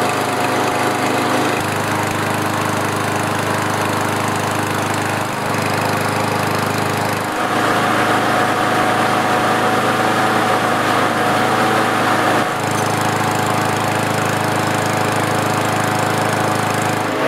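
Kohler Courage XT6 single-cylinder lawn mower engine running steadily with its governor spring tensioned higher to raise the speed from a low 2,300 RPM toward about 3,200 RPM. It grows a little louder for several seconds from about seven seconds in while the governor plate is being bent, and settles back near the end at about 3,190 RPM.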